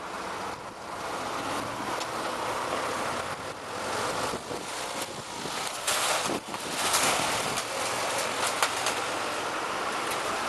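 Wind buffeting the microphone over a steady rushing hiss, growing louder about two-thirds of the way through.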